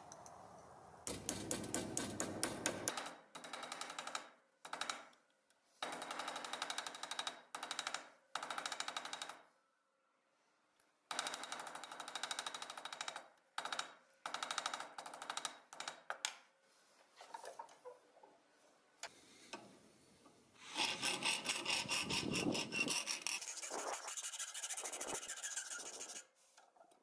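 A hammer tapping rapidly on a stamped-steel toy plane's tail fin held in a bench vise, in bursts of a second or two, then a hand file scraping back and forth along the fin's edge for the last several seconds.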